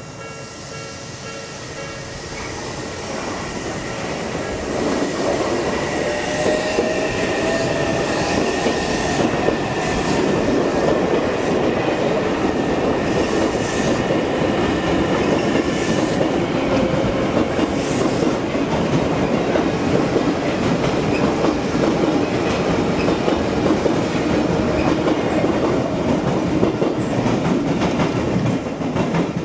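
Odakyu Line electric train passing a level crossing: a loud rush of wheel and rail noise that builds over the first few seconds, with clickety-clack of the wheels over the rail joints. The motor whine rises in pitch about six seconds in. The crossing's warning bell rings as steady tones, fading under the train noise by the middle.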